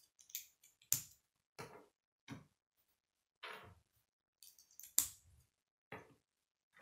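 Plastic K'nex pieces clicking and tapping as they are handled, fitted together and set down on a wooden table: about seven separate sharp clicks, the loudest about a second in and about five seconds in.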